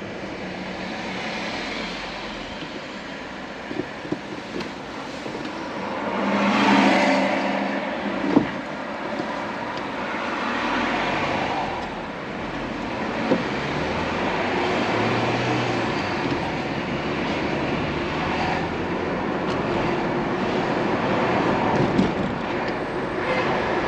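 Steady road and tyre noise of a car being driven, with a louder swell about seven seconds in, as of a vehicle passing, and a few brief knocks.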